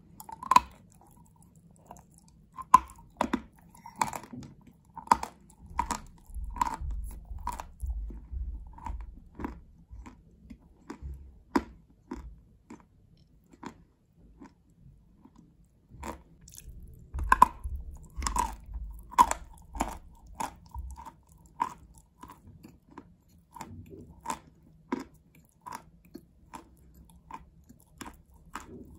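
Close-up crunching and chewing of a mouthful of chalk, wet and crumbly, in two runs of sharp crunches with a sparser spell in the middle.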